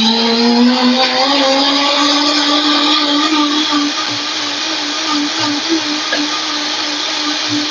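Blender running, blending a banana smoothie: the motor rises in pitch during the first second as it comes up to speed, then holds a steady whirring pitch.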